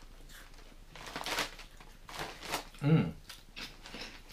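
Crunchy prawn crackers being chewed: a few short crackly crunches, with a brief hummed voice sound just before three seconds in.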